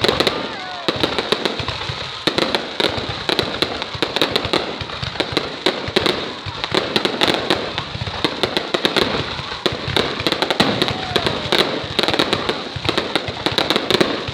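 Fireworks going off continuously: a dense, unbroken stream of bangs, pops and crackles.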